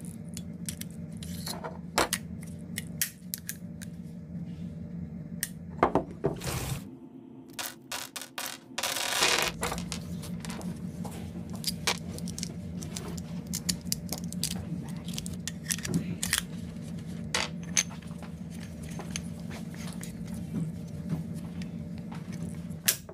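Metallic clicks, scrapes and clinks of a Beretta Bobcat .22 LR pistol being handled on a wooden tabletop, with loose .22 LR cartridges clinking as its magazine is loaded. A steady low hum runs underneath and drops out for a couple of seconds about seven seconds in.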